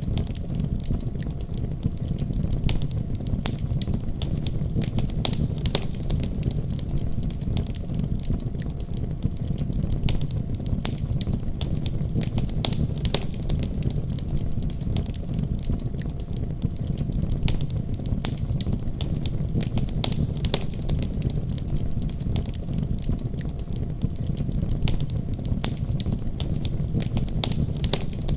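Fire burning in a fireplace: a steady low rumble of flames with frequent sharp crackles and pops.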